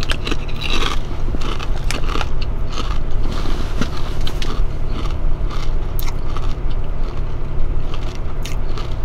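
Chewing a kettle-cooked potato chip, with many sharp crunches and crackles in the mouth. A steady low rumble runs underneath, heard from inside a car.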